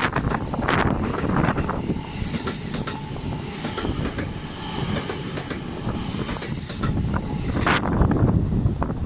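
Passenger train running with a steady rumble and clatter from the track. The wheels give several brief high squeals, the loudest about six seconds in.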